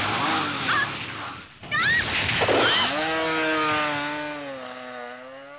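Motorcycle engine revving hard as the bike spins away with its rear wheel in dirt, then settling into a steady engine drone that fades as the bike moves off into the distance.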